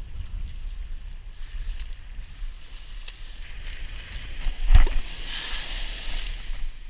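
Beach surf washing with wind rumbling on the microphone, and one sharp thump close to the microphone near the five-second mark.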